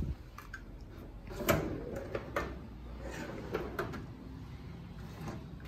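Steel tool-chest drawers on ball-bearing slides being pulled open and pushed shut, with a sharp knock about a second and a half in and several lighter clicks and sliding noises after it.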